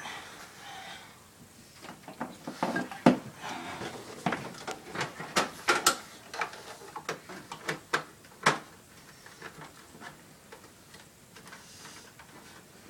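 Irregular clicks and knocks of hard plastic parts being handled and fitted onto an Xbox 360 console. They are thickest in the first two-thirds, with sharp knocks about three seconds in and about eight and a half seconds in, then thin out.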